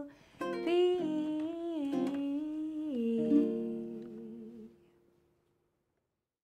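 A woman's wordless closing vocal phrase over a nylon-string classical guitar, ending the song on a held final chord that fades out about five seconds in.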